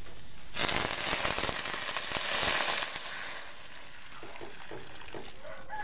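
Water poured into a hot wok of oil and frying chopped spices, hitting the oil with a loud sudden sizzle about half a second in that lasts some two seconds and then settles to a quieter simmering hiss.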